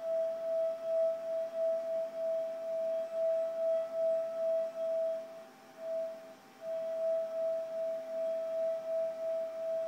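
Wine glass rubbed around its rim with a wet finger, singing one steady pure tone that pulses about twice a second. The tone breaks off about five and a half seconds in, returns briefly, then picks up again.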